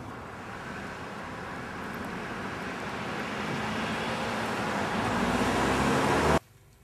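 Road vehicle noise, a steady rumble that grows gradually louder as if a vehicle is approaching, then cuts off abruptly about six seconds in.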